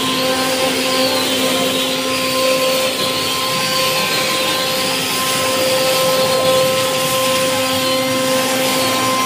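Heavy-duty CNC router spindles running, their bits carving a relief into a wooden door panel: a continuous steady hum under a high whine that wavers up and down, with a hiss of cutting.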